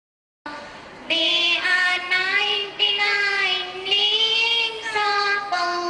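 Girls singing a slow melody into a microphone, long held notes that bend in pitch. The sound cuts out completely for about half a second at the start.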